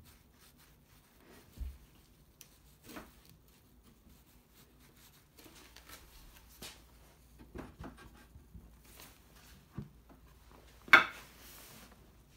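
Quiet hand-tool work on Douglas fir: a chisel paring and scraping at the wood, with scattered light taps and clicks. Near the end comes one sharp knock followed by a short rasp as a board is handled against the tenons.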